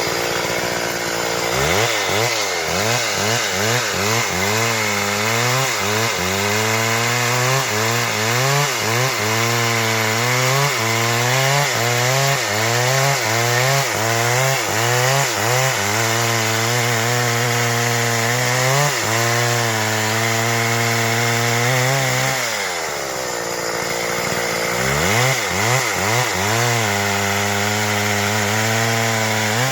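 Stihl MS 382 two-stroke chainsaw running at high revs while cutting wood, its engine pitch dipping and recovering about once a second as the chain bites in. A little past two-thirds of the way through, the engine drops to a lower speed for a few seconds, then revs back up.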